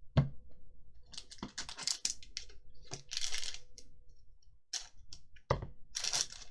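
Magic: The Gathering trading cards being handled on a table: irregular rustling and sliding as cards are flicked through and laid down, with a knock just after the start and another about five and a half seconds in.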